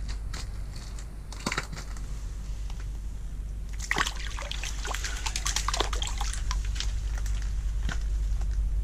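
Water in an ice-fishing hole splashing and sloshing as a small walleye is dropped back in, starting about four seconds in and lasting a few seconds, over a steady low rumble.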